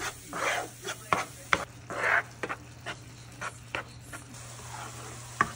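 Spatula stirring and scraping food in a nonstick frying pan: a run of sharp clicks and taps against the pan, with a few short scraping swishes.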